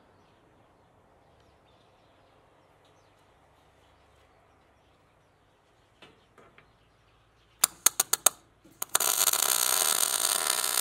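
MIG welder tacking steel plate: about six short arc strikes in quick succession, then a steady arc starting about nine seconds in as a tack is laid.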